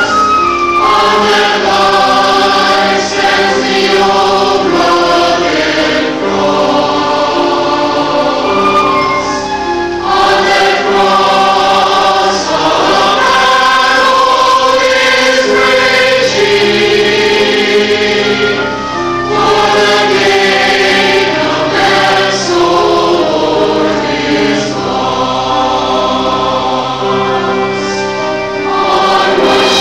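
Large mixed church choir singing a sacred cantata in sustained, shifting chords, with instrumental accompaniment.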